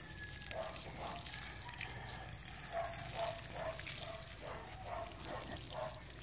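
Water pouring steadily from the open end of a garden hose fed by a water pump, gushing onto the soil among the plants.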